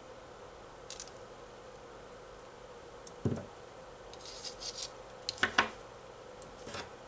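A beaded bracelet being handled and laid down: soft rustling and small clicks of glass seed beads and metal magnetic clasps, with a dull thump about three seconds in. The loudest sound is a short clatter of beads and clasp a little after five seconds.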